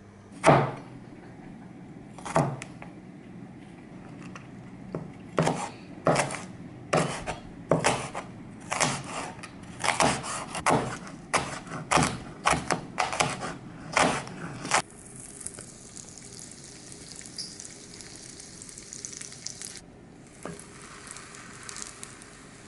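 Cleaver chopping cabbage on a wooden cutting board: sharp knocks every half second to a second, the first the loudest. About fifteen seconds in the chopping stops and bread toasting in butter in a frying pan takes over with a steady sizzle, broken briefly once.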